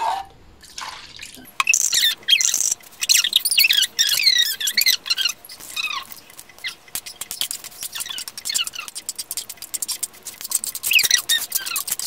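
Small birds chirping and twittering in quick, high, falling notes, with scattered light clicks.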